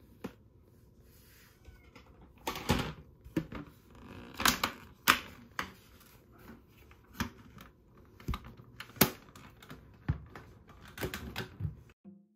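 Irregular clicks, knocks and rustling of things being handled around a fleece blanket and plastic pet carrier: about a dozen sharp taps spread over ten seconds, the loudest in the middle.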